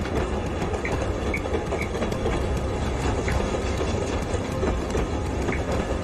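Passenger train running on the rails, heard from inside the carriage: a steady low rumble with a few faint, scattered clicks of the wheels.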